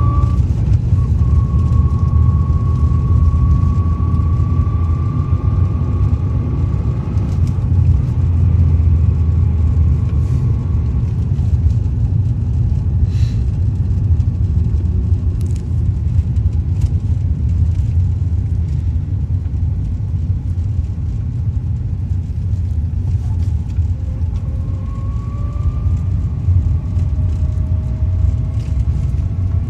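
Lada Granta underway with a steady low engine and road rumble and a thin whistle over it that appears around 3,000 rpm. The whistle climbs slightly in pitch for the first ten seconds or so, fades away, then comes back rising near the end alongside a lower rising tone.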